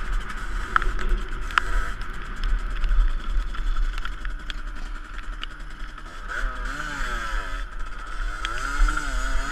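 Two-stroke dirt bike engine on the move, its revs rising and falling repeatedly in the second half as the throttle is worked, with wind rumble on the microphone and scattered sharp clicks.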